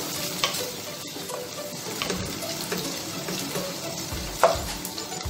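Sliced onions, garlic and chillies sizzling in oil in a pot while a wooden spoon stirs them, scraping and tapping against the pot, with one sharper knock of the spoon about four and a half seconds in.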